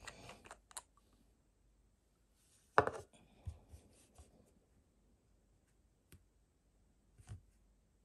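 Small clicks and taps from handling a glass nail polish bottle and its cap on a table. The sharpest click comes about three seconds in, followed by a few fainter ticks.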